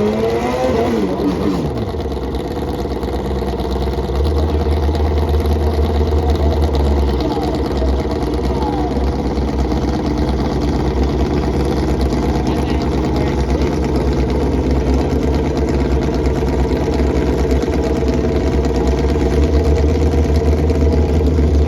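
Car engine running steadily, with a deep low rumble that swells about four seconds in and again near the end; a falling pitch in the first two seconds.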